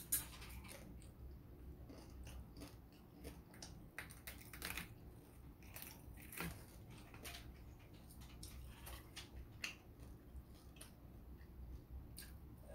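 A person eating crispy fried pork: chewing and biting with scattered short, crisp crunches and mouth clicks, a few of them louder than the rest.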